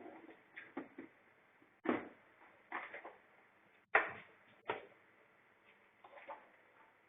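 Irregular knocks and clatters of high chair parts being handled and set down, with the sharpest knocks about two and four seconds in and lighter clicks between.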